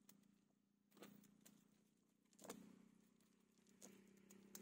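Near silence, with three faint, brief ticks spread about a second or more apart.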